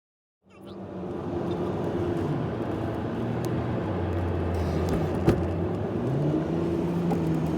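Car cabin noise while driving: a steady engine and road hum that starts about half a second in, its low tones shifting in pitch, with one sharp click about five seconds in.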